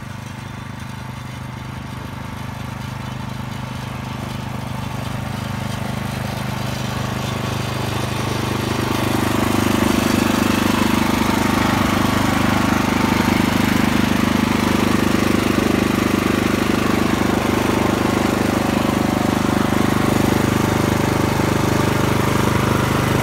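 Small engine of a walk-behind snowblower running steadily. It grows louder over the first nine seconds, then holds loud and even close up.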